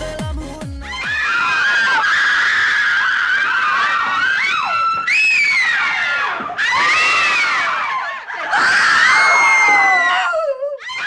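Music with a deep sliding bass cuts off within the first second. Then comes high-pitched human screaming in a run of long shrieks with short breaks, its pitch sliding up and down.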